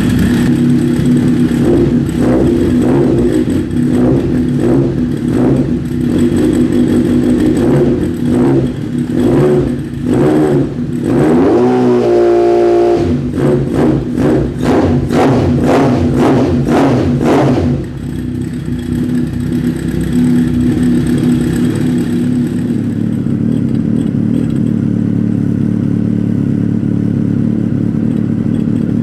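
Honda CB1000SF's inline-four engine through a Maverick MV83 carbon slip-on silencer, loud, revved in a string of short throttle blips with one rising rev about halfway through, then settling to a steady idle.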